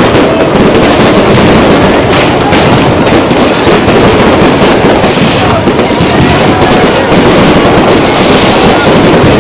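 Fireworks display in full barrage: a loud, unbroken run of overlapping bangs and crackling with no pause, and a brief high hiss about halfway through.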